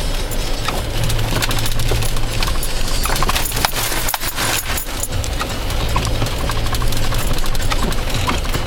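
Car driving in snow: a steady low engine and road hum, overlaid by a rapid scatter of small clicks and crackles, which thin out briefly about four seconds in.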